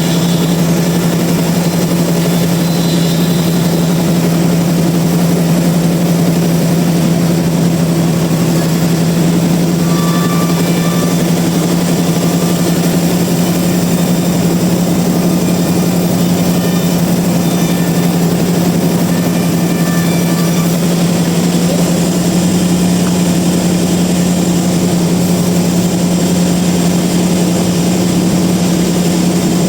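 Sawmill machinery running steadily: a loud, even motor drone with a constant low hum that does not change pitch.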